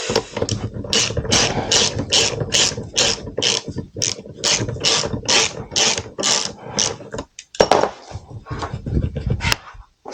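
Socket ratchet wrench clicking in repeated back-strokes, about two to three a second, as bolts on a motorcycle's rear brake caliper are turned out. There is a brief pause near three-quarters of the way through, then a few more strokes.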